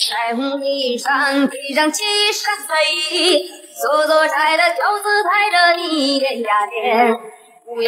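A song on the soundtrack: a high female voice singing a melody with long held notes.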